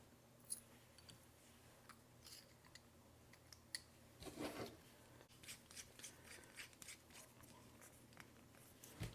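Very faint handling of a metal bolt-action pen's parts: scattered small ticks and rubs, with a slightly longer soft rustle about four and a half seconds in.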